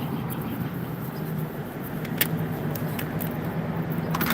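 Steady hum of a running engine or motor, with a couple of sharp clicks about two seconds in.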